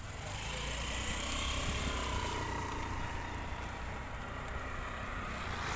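A vehicle's engine and road noise while driving: a steady low rumble with a broad hiss, and a faint whine about two seconds in.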